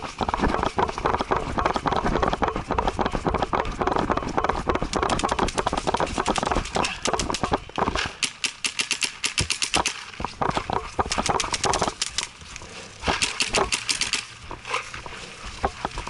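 Paintball marker firing rapid strings of shots, about ten a second, with short breaks between strings.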